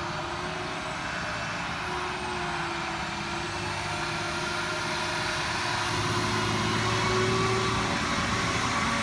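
Fire truck engine running steadily, growing somewhat louder in the last few seconds.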